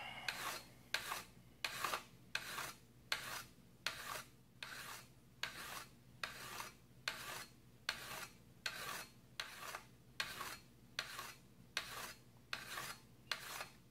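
Fine side of a diamond hone rubbed back and forth along the edge of a carbon steel scraper blade in steady rasping strokes, about three every two seconds. The fine grit is taking out the scratches left by the coarse side.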